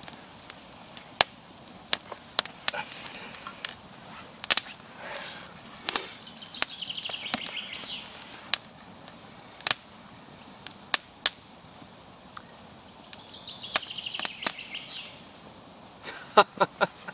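Scattered sharp clicks and light knocks as a hickory-hafted camp axe is picked up and handled in leather work gloves, with quiet outdoor background. Two short runs of rapidly repeated high bird notes come in, once near the middle and once near the end.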